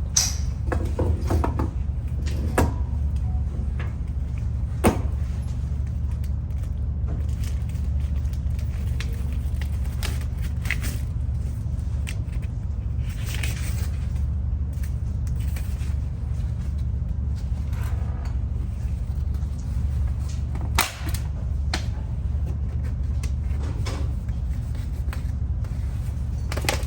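Steady low rumble of road noise inside a moving car, with a few light knocks and clicks now and then.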